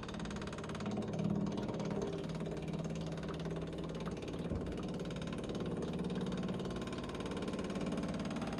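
Small HEP-02A electronic inline fuel pump running with a rapid, steady ticking hum as it pumps diesel through a clear hose into a canister.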